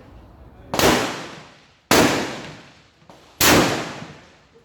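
Three centrefire rifle shots, about one and a half seconds apart, each a sharp crack followed by a long echoing decay.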